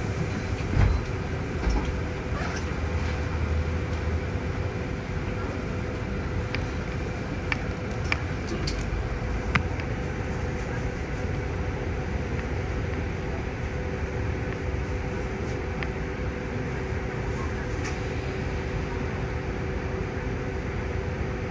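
Cabin noise inside a city bus moving slowly in traffic: a steady engine and air-conditioning rumble with two held hum tones. A few short clicks and knocks sound, the loudest about a second in.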